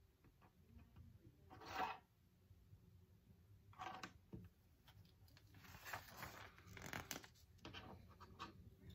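Faint rustling and light clicking of small plastic building bricks as hands sort through a pile of pieces on a desk, with the loudest rustle about two seconds in and more around four and six to seven seconds.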